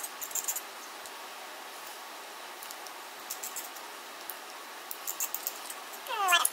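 Bursts of light, rapid clicking and rustling as a Hot Tools 1-inch curling iron is worked through a section of hair. Near the end there is a short, rising voice-like sound, the loudest moment.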